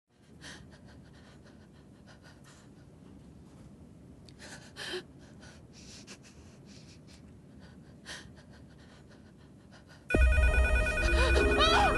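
Faint breaths in near-quiet, then about ten seconds in a telephone bell suddenly starts ringing loudly.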